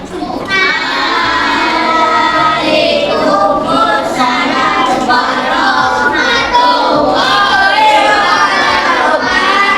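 A group of voices singing a song together in chorus, without pause.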